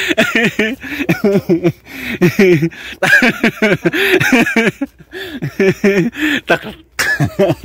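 Lively talking broken by laughter, the voice rising and falling quickly and rarely pausing.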